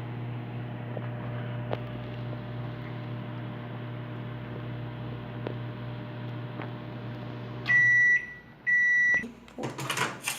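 Microwave oven running with a steady low hum, a few faint ticks over it, then stopping about three quarters of the way in. It gives two half-second beeps at the end of its cycle, followed by a few sharp clicks near the end.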